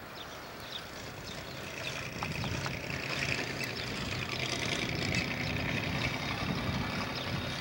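A truck engine running nearby, swelling louder about two seconds in and holding steady.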